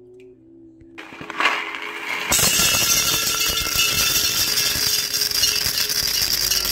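Electric mixer running in a bowl of butter and cheese. It starts up about a second in and becomes a loud, steady motor and churning noise, with faint background music under it.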